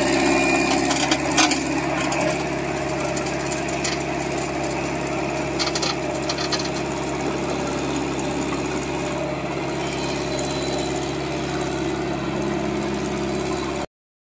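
Diesel engine of an Ajax Argo 2300 self-loading concrete mixer running steadily under working load while the loader bucket scoops and lifts aggregate, with a few sharp clanks about a second in and again around six seconds. The sound cuts out completely for a moment just before the end.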